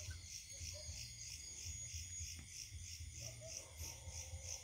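Faint insect chorus, a high pulsing trill about four times a second, over a weak low rumble.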